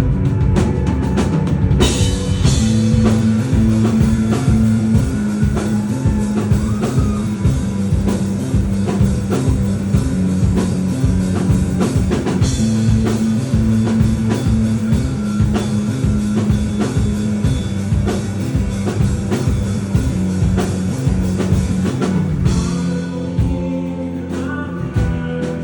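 Live rock band playing with a full drum kit keeping a dense, driving beat under bass and electric guitar, with singing and cymbal crashes twice. Near the end the drums drop away and the music thins out.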